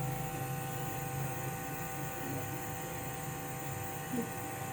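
Nebulizer compressor running with a steady electric hum.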